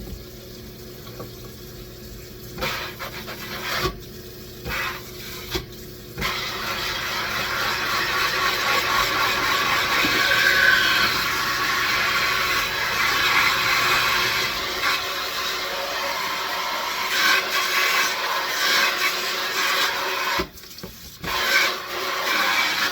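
Kitchen tap running into the sink while a cutting board is rinsed and rubbed clean under the water. For the first few seconds there are only scattered short rubbing and knocking sounds; then the water runs steadily, breaks off briefly and comes back near the end.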